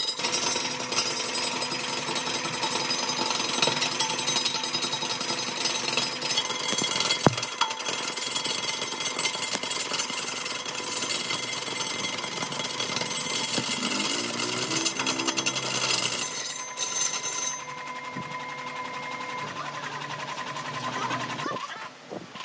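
A power tool running with a dense, rapid rattling machine noise, dropping to a quieter run about two-thirds of the way through.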